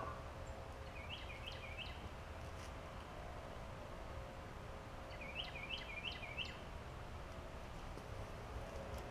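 Quiet outdoor background hum with a small bird chirping twice in short runs of quick notes, about a second in and again around five seconds in.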